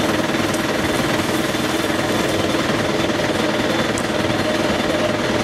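Fire engine's engine running steadily at the scene: a loud, continuous drone with a fast rattling pulse.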